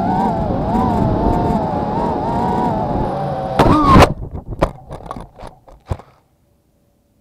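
Racing quadcopter's motors and propellers whining, the pitch wavering up and down as the throttle changes, heard through the camera on board. About three and a half seconds in it crashes with a loud hit, then tumbles with several knocks and clatters before the sound cuts off about six seconds in.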